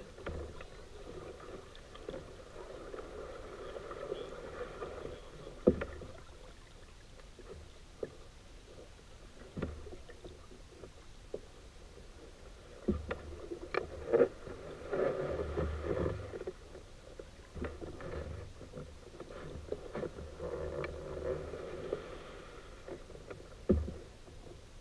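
Paddling a small boat on a river: the paddle swishes and splashes through the water in recurring strokes, with a few sharp knocks now and then.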